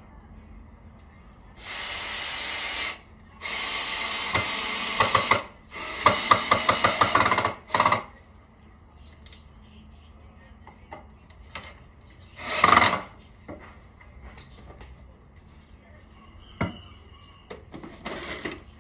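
Tool work on trellis material: several bursts of harsh rasping noise, one of them made of quick regular strokes, about four or five a second, like sawing or filing, with a shorter burst and a click later on.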